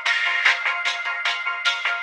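Background music: bright electronic keyboard notes struck in a quick, steady rhythm.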